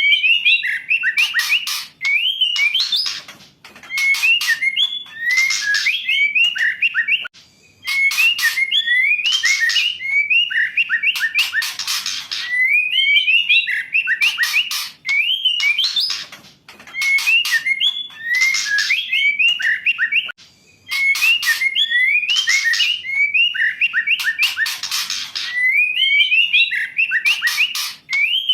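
Female white-rumped shama singing: short phrases of whistled notes that glide up and down, repeated every two to three seconds, mixed with harsh rasping notes.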